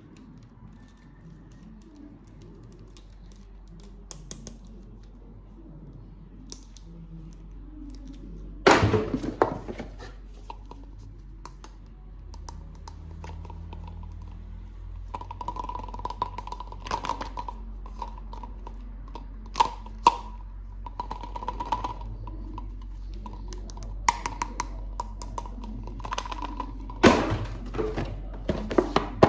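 Plastic toys and packaging being handled during an unboxing: scattered clicks and taps, with two louder knocks. From about halfway, a steady high tone pulses for roughly ten seconds and stops with the second knock.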